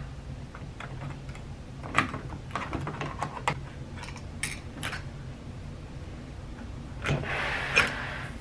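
Scattered metallic clicks of a key and doorknob hardware being handled, then a brief jangling rattle with a sharp click near the end.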